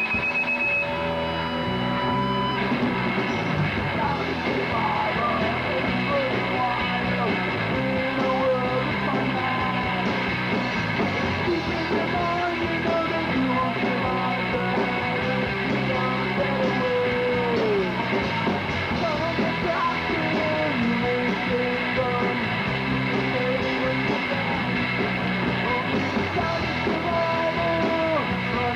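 Rock band playing live, with electric guitar prominent in a dense, steady wall of sound.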